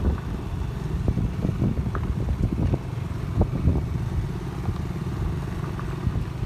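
Motor scooter engine running at low speed on a rough dirt track, with short knocks and rattles as the bike bounces over the bumps.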